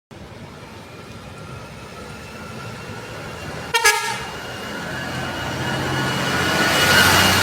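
A tour bus horn gives a short, loud pitched blast about halfway through. A large vehicle then approaches, its engine and road noise swelling to loudest near the end.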